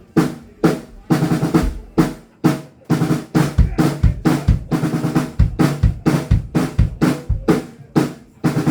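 Drum kit played in quick runs of snare and tom strokes, with deep kick drum hits through the middle: a drummer playing through the kit during a band's sound check.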